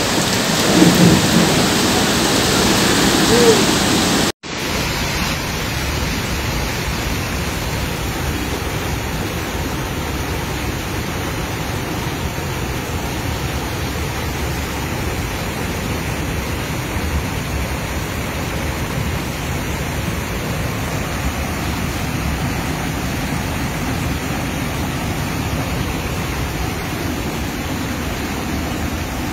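Muddy floodwater rushing in a steady, loud noisy wash. The sound cuts out for a moment about four seconds in, then carries on evenly.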